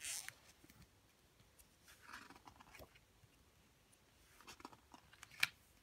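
Picture book being opened and its pages handled: a paper swish as the cover turns at the start, a softer rustle about two seconds in, then a few light clicks and one sharper tap near the end as the page is pressed and lifted.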